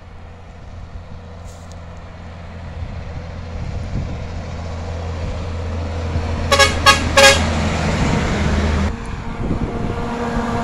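Diesel truck engine growing steadily louder as a concrete mixer truck approaches, with three quick truck-horn blasts about two-thirds of the way through, the last slightly longer. Near the end the sound changes abruptly to another passing truck's engine.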